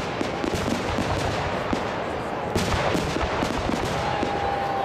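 Aerial fireworks shells bursting in quick succession, a run of sharp bangs and crackling reports with one louder bang about two and a half seconds in. A steady whistle-like tone begins near the end.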